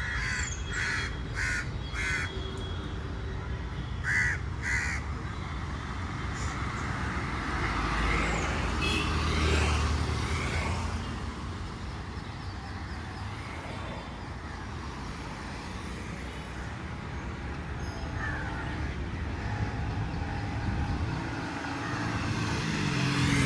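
Crows cawing, four quick caws right at the start and two more a few seconds later, over a steady rumble of road traffic that swells as a vehicle passes.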